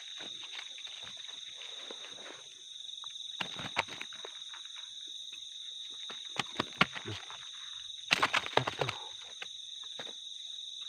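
Steady chorus of night insects such as crickets, several high continuous trills at once, with scattered knocks and rustles of handling, the loudest cluster about eight seconds in.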